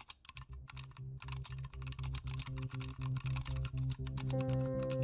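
Rapid computer-keyboard typing clicks, a typing sound effect, over background music: a low sustained note comes in just after the start and grows louder, with more held notes joining near the end.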